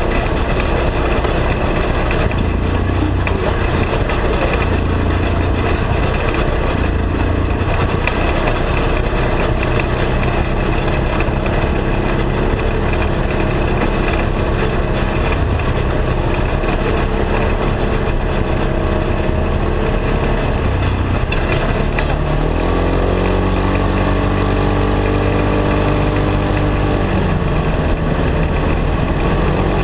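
Polaris RZR side-by-side engine running under way, with wind and road noise on the open cab. About two-thirds of the way through, the engine pitch rises as it speeds up, holds for a few seconds, then drops back near the end.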